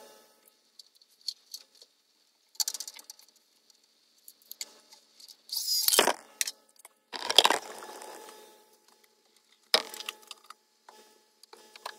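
Knocks and clatter of wooden boards being handled at a miter saw, with two loud short bursts about halfway through and a sharp knock near the end.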